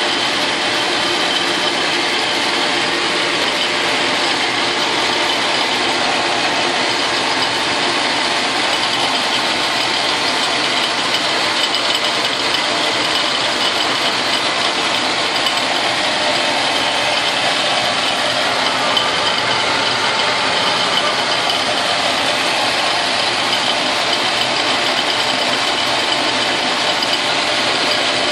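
Logan metal lathe running steadily with its automatic feed engaged, an end mill in the spindle collet milling a metal block on the compound: a constant mechanical running sound of motor, drive and gears together with the cutting of the end mill, the feed rate set just about right.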